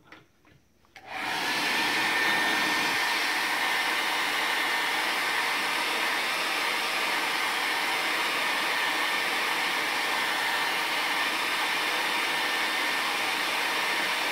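A hair dryer switched on about a second in and running steadily with a faint thin whistle in its rush, drying freshly applied acrylic paint.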